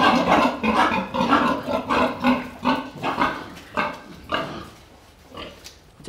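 Pig grunting in short, rough calls about three a second, fading away near the end.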